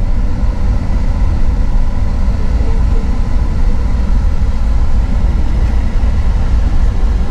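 Steady low rumble of a long-distance coach on the move, its engine and road noise heard from inside the passenger cabin.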